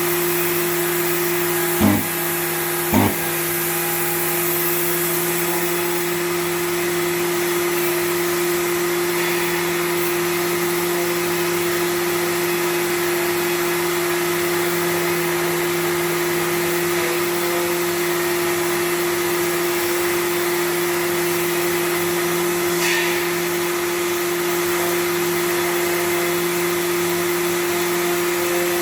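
Power sander running steadily during dry sanding of a car bumper: a constant motor hum with a sanding hiss. There are two short knocks about two and three seconds in.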